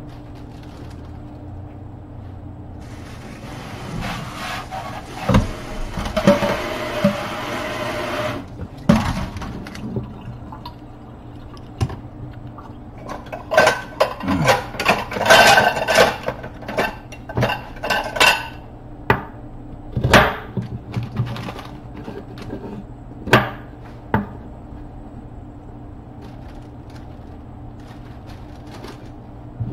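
Kitchen tap water runs steadily for about six seconds. Then comes a quick run of knife strokes through carrots, clacking on a wooden cutting board, followed by a few single knocks of the knife on the board.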